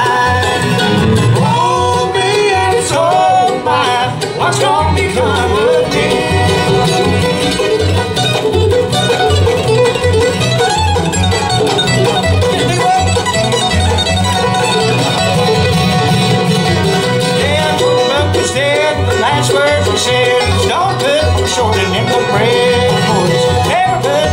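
Live bluegrass string band playing an up-tempo tune: five-string banjo, fiddle, mandolin, acoustic guitar and upright bass, with the bass keeping a steady beat underneath.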